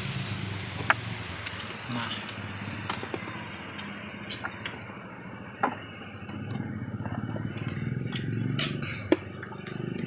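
Water splashing and sloshing as a hand stirs in a shallow fish well, with a few sharp knocks.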